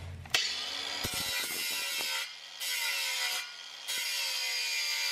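Angle grinder grinding a rusted steel exhaust pipe around a blown-through hole, throwing sparks. It starts about half a second in, and its whine rises and falls as the disc bites. The noise eases off briefly twice, a little after two seconds and again around three and a half seconds.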